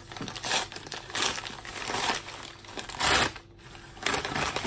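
Parcel packaging being torn open and crinkled by hand, in a series of irregular rustling bursts, the loudest about three seconds in.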